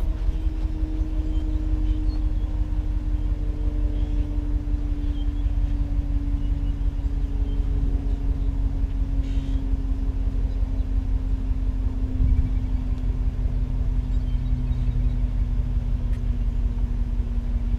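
Pickup truck engine and road noise while driving: a steady low rumble with a tone that sinks slowly in pitch.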